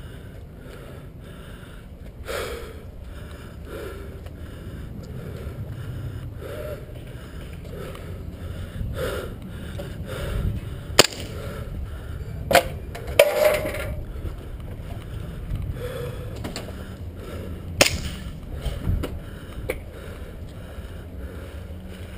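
Rumble of wind and movement on the microphone with soft regular steps about twice a second, broken in the middle by a few sharp cracks of airsoft guns firing, one of them a short rapid burst.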